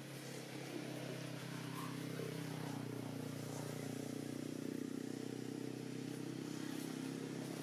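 A motor vehicle's engine running steadily out of sight: a low, even hum of a few steady tones that grows a little louder over the first couple of seconds.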